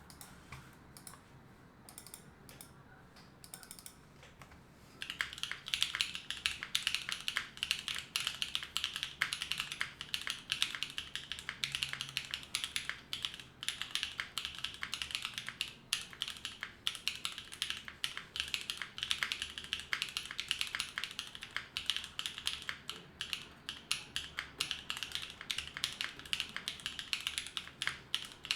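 Typing on a Neo65 mechanical keyboard with lubed Gateron Cream Soda linear switches, an FR4 plate, no foam and GMK Serika keycaps. After a few light taps, fast continuous typing starts about five seconds in.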